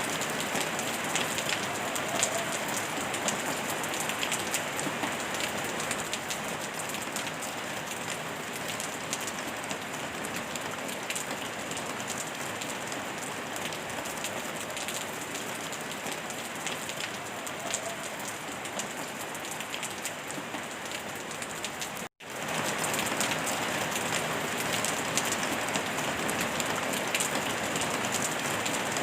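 Steady rain falling, a constant patter of drops blended with pink noise. About three-quarters of the way through the sound cuts out completely for a split second, then resumes.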